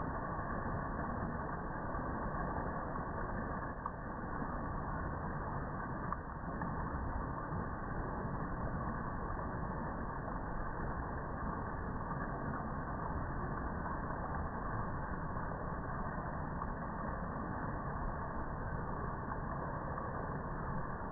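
Steady rushing of river water flowing up to a weir: an even, unbroken noise.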